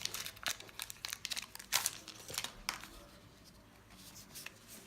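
Magic: The Gathering booster-pack wrappers crinkling and crackling in the hands, with cards being handled. The crackles come irregularly and thin out after about three seconds.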